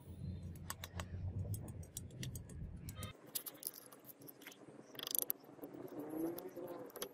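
A small metal spatula scraping and dabbing wet clay onto a wire-wrapped steel blade, with irregular light clicks as it catches on the wire. A brief louder scrape comes about five seconds in. This is the clay coat being laid on the blade before it is quenched for hardening.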